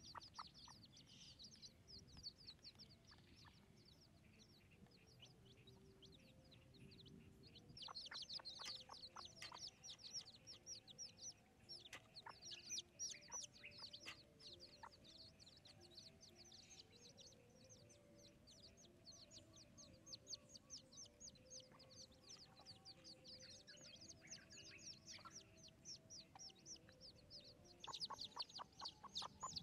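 Chicks peeping in a constant run of short high chirps, busiest about a third of the way in and again near the end, with a hen clucking under them.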